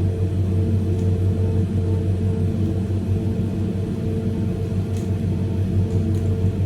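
Steady low hum of a Ferris wheel gondola's air conditioner, with a few faint clicks from a Megaminx puzzle being turned.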